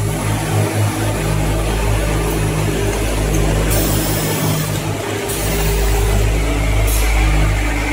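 Automatic breathing-filter assembly machine running: a steady low machine hum under a continuous hiss, with a brighter hiss coming in about halfway through and again near the end.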